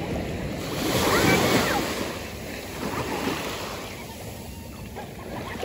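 Small waves washing in at the shoreline and swirling around a child's legs in shallow water. One wash swells loudest about a second in, and a smaller one follows around three seconds.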